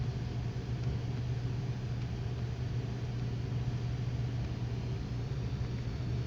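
Steady low hum over a faint even hiss, unchanging throughout: background room tone with no distinct event.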